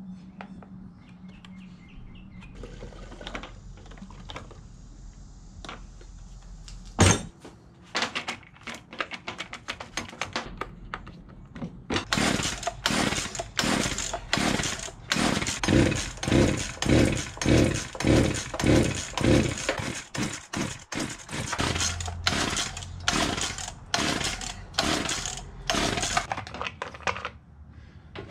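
A small two-stroke chainsaw being pull-started over and over, from a little before halfway: quick yanks on the recoil starter rope, the engine cranking over in a rapid even rhythm without catching and running. The saw has had water in its fuel and has weak spark, sparking only when the rope is pulled hard. Before the pulls there are handling knocks, one of them sharp.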